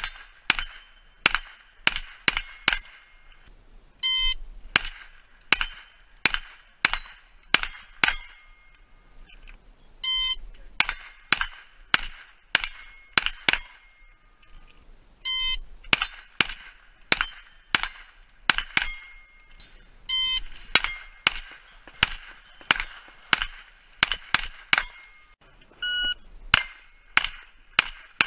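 A shot timer beeps, then a pistol-caliber carbine fires a quick string of about five shots at steel plates, each hit followed by the steel ringing. The beep-and-string pattern repeats about five times, with a pause of a second or two between strings.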